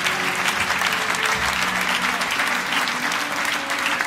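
Audience clapping steadily, with a few faint held notes from the band's instruments underneath.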